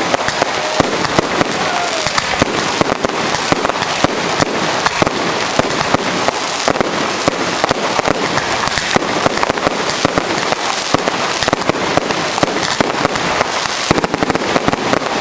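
Professional fireworks display: an unbroken, rapid barrage of aerial shell launches and bursts, many bangs a second with crackling between them.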